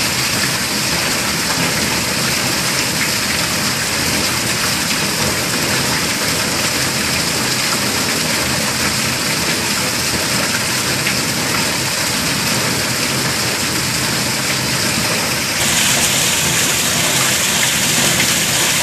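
Heavy monsoon downpour: a steady, dense hiss of rain, with water pouring off the roof edge onto flooded ground. About three-quarters of the way through it gets slightly louder and hissier.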